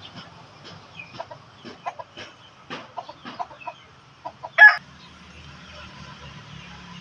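Rooster clucking in a run of short, uneven notes, then one loud, short squawk about four and a half seconds in.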